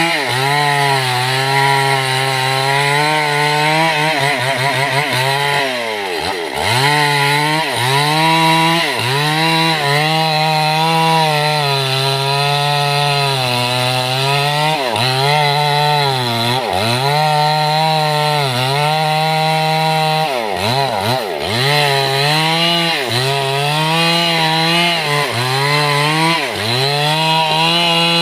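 Stihl two-stroke chainsaw running at high revs while cutting mahogany, its pitch dipping and recovering about every two seconds as the engine is loaded or the throttle eased.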